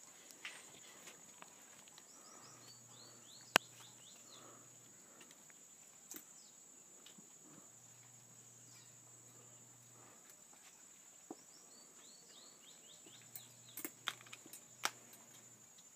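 Outdoor ambience: a steady high-pitched insect drone, two runs of short descending bird chirps, and a few sharp clicks, the loudest about three and a half seconds in.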